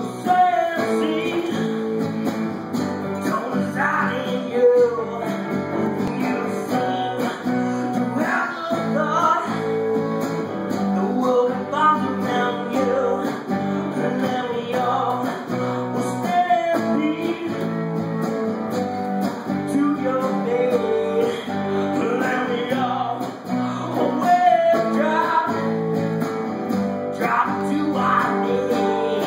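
Live guitar music: an acoustic guitar strumming and picking chords through a song's opening, with no clear singing.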